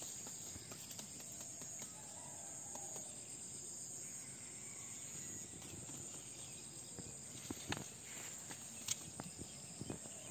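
Insects in a rice paddy chirping in a steady high-pitched drone, with a few sharp knocks in the second half from the woven bamboo fish trap being handled.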